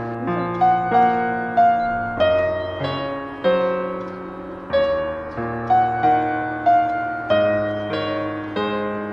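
Background piano music: a slow, gentle melody of struck notes and chords, each note fading after it is played.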